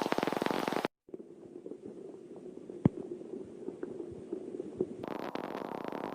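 Rain pattering densely. It cuts off abruptly about a second in, giving way to a quieter stretch with a low steady hum and occasional clicks, and the dense patter returns about five seconds in.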